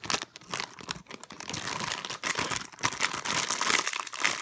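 Crinkling and rustling from squishy toys being handled, starting suddenly and going on busily throughout.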